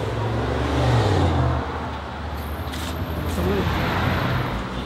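Road traffic: a motor vehicle's low engine rumble and road noise, swelling to its loudest about a second in and then easing.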